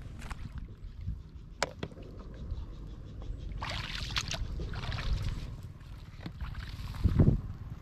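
Shallow floodwater splashing and sloshing as someone moves through it and reaches in by hand, with a few sharp clicks and a louder thump near the end.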